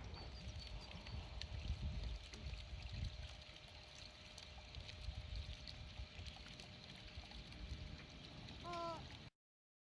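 Faint low rumbling noise with scattered light clicks. About nine seconds in comes one short pitched call that bends in pitch, and the sound cuts off suddenly just after.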